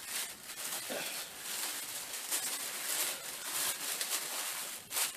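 Tissue paper rustling and crinkling in irregular handfuls as it is pulled back and handled.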